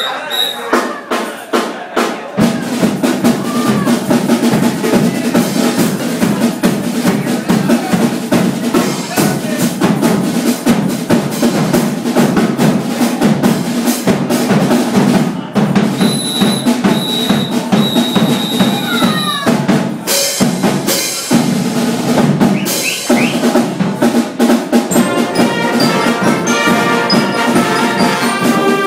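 Marching band drum section playing a fast, dense percussion feature on snare and bass drums. Brass begins to come in near the end.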